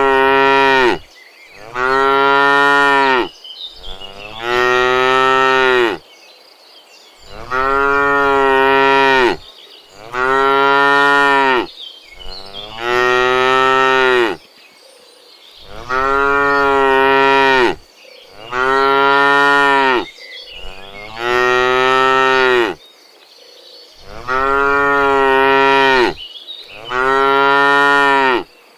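Cow mooing over and over: long, drawn-out moos about two seconds each, rising and falling in pitch, one every two to three seconds.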